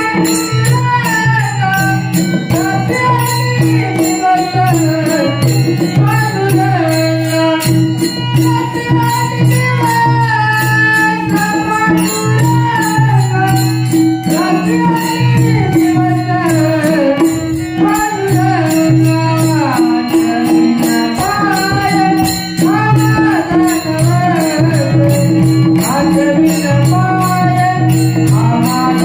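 Marathi devotional folk song (Harijagar) performed live: a solo male voice sings a gliding, ornamented melody over harmonium with a held drone note, while a fast, even beat of small metallic percussion ticks throughout.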